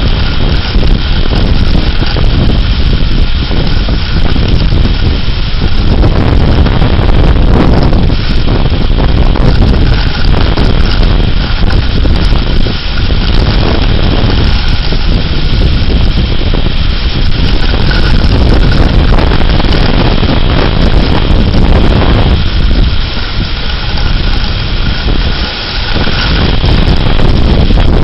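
Severe-thunderstorm wind gusts blasting the microphone: a loud, continuous rushing rumble that swells and eases, dipping briefly a few seconds before the end.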